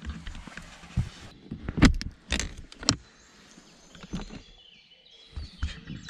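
Handling noises in a small camper trailer: rustling with a series of sharp knocks and clicks, the loudest about two and three seconds in, then quieter near the end.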